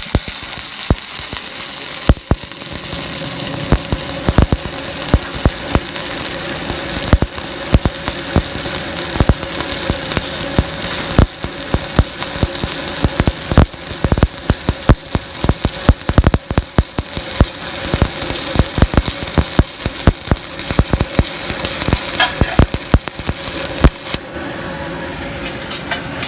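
Stick-welding arc crackling and sizzling steadily with many sharp pops as a bead is run, stopping about two seconds before the end and leaving only a steady hum.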